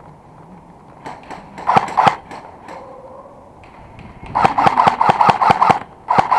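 Airsoft guns firing: a few single shots about a second in, then rapid fully automatic bursts of about nine shots a second, one from around four seconds in and another starting just before the end.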